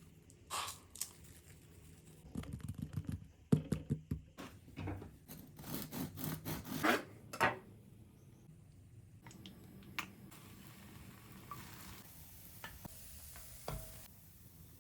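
Scratching and rubbing with short clicks and knocks, busiest from about two to eight seconds in, then a few faint scattered clicks.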